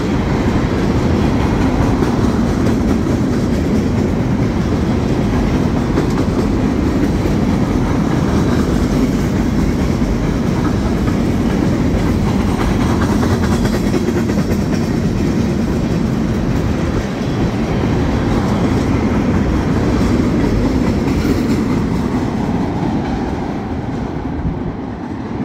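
Freight train of tank cars rolling past close by: a steady rumble of steel wheels on the rails with clickety-clack from the wheels over the track, fading near the end as the last cars pull away.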